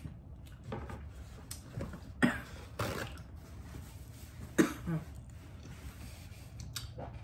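A woman coughing and clearing her throat in several short bursts, two close pairs with the loudest cough about two-thirds of the way through. The coughing comes from spicy sauce catching her throat.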